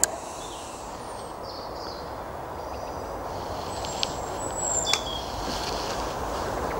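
Steady outdoor background rush with small birds chirping and whistling at dusk. A few sharp clicks stand out, the loudest right at the start.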